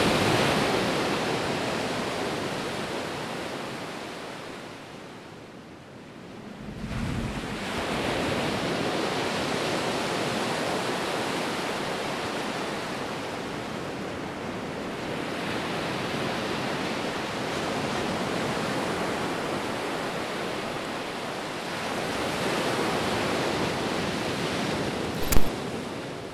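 Ocean surf breaking and washing over a rocky shore: a steady rushing noise that swells and eases in slow surges and dips about six seconds in. A single short, sharp hit near the end.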